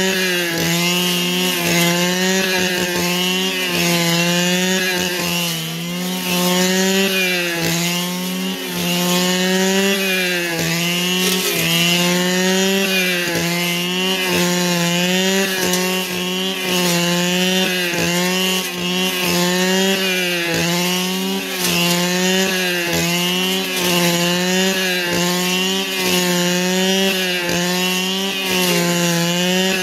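Two-stroke brush cutter running at high revs, its pitch sagging and recovering every second or two as the engine takes and sheds cutting load.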